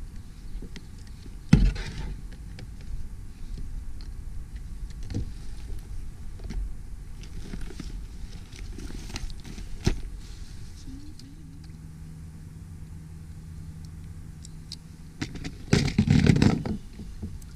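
Handling noise on a kayak: scattered knocks and scrapes over a low rumble, with a sharp knock about a second and a half in and another near the middle, and a louder scuffling burst near the end.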